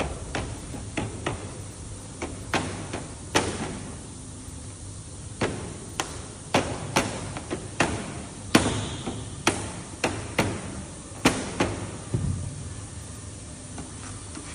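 Hand hammer striking, about twenty sharp knocks at an uneven pace, with a pause of a couple of seconds after the first few.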